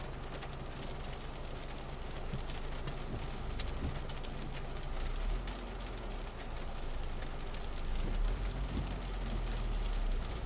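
Rain falling on a car's roof and windshield, heard from inside the cabin: a steady hiss with many small drop ticks over a low, steady hum.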